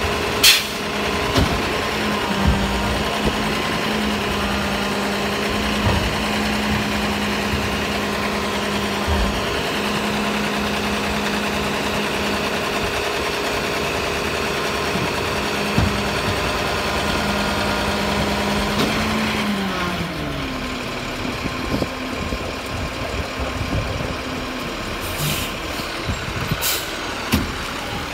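Garbage truck on a cardboard collection run, its engine running with a steady hum. A short, sharp burst of noise comes about half a second in. The hum's pitch drops about two-thirds of the way through and settles at a new steady note, and a few sharp knocks sound near the end.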